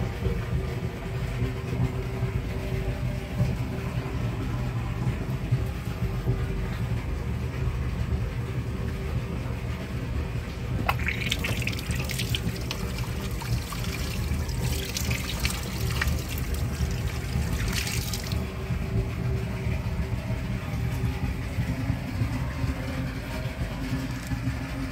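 Water gushing and splashing from a tank's PVC ball valve opened by hand, heard in bursts for about seven seconds from around eleven seconds in, over a steady low machine hum.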